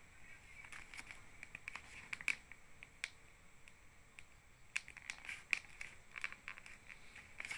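Small blade cutting and scraping through packing tape on a paper mailer: faint, irregular crackling and clicking of tape and paper.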